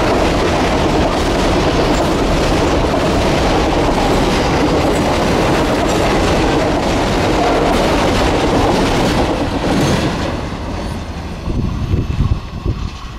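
Empty grain hopper wagons of a freight train rolling past close by, their wheels running on the rails in a loud, steady rumble. About ten seconds in the last wagon goes by and the sound drops away as the train recedes, leaving a few low thuds near the end.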